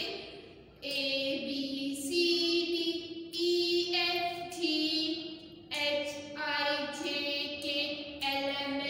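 A woman singing a song for young children in a single voice, holding each note for about half a second to a second as the melody steps up and down.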